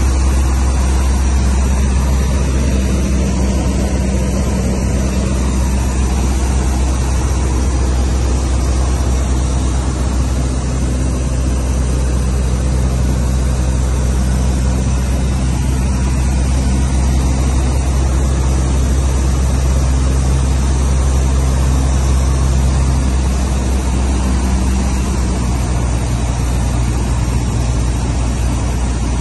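Cessna 152's four-cylinder Lycoming engine and propeller heard from inside the cabin in flight: a loud, steady drone with constant airflow noise. The engine's tone shifts slightly a few seconds before the end.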